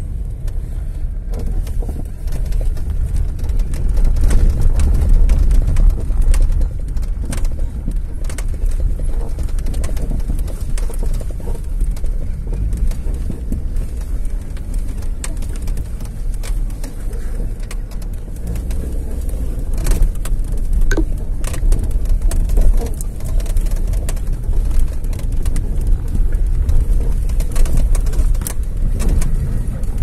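Steady low rumble of a moving vehicle on the road, with frequent small knocks and rattles scattered through it.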